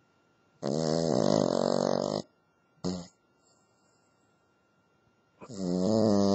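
Cavalier King Charles spaniel snoring while asleep: two long, pitched snores of about a second and a half each, with a brief short one between them.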